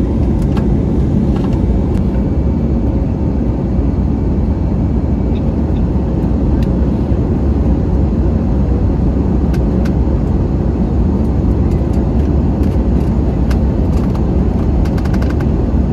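Steady cabin noise of an airliner in flight: a low, even drone of engines and rushing air, with a few faint clicks near the end.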